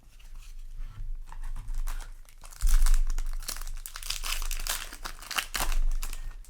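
Foil booster-pack wrapper crinkling and being torn open by hand, with a low handling thump a little under halfway through.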